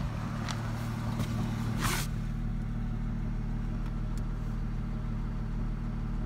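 2004 Ford Mustang's 3.8L V6 idling with sharp pops, three in the first two seconds with the last the loudest, then a steady idle. The popping is a misfire, the sign of a faulty ignition coil pack.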